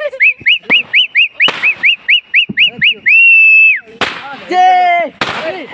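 A shrill whistle sounding in a rhythm of about a dozen quick short toots, roughly five a second, then one long held blast. Near the end come a shout and a sharp crack.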